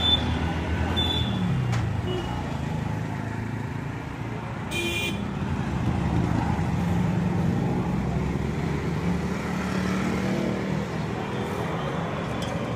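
Street traffic: vehicle engines running, with a short high-pitched toot about five seconds in.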